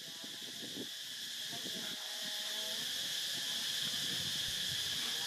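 Steady high-pitched chorus of insects, growing louder about two seconds in.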